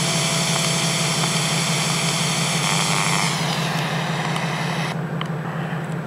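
Large truck's engine idling steadily with a high whine over the low hum; a little after three seconds the whine drops in pitch and fades out.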